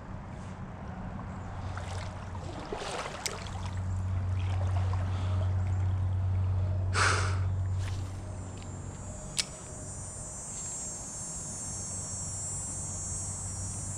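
Pflueger spinning reel being cranked to retrieve a small spinner, a steady low whir that swells about a quarter of the way in and fades a little after halfway, over the trickle of a small brook. A brief rush comes just after halfway, and a sharp click about two-thirds of the way through.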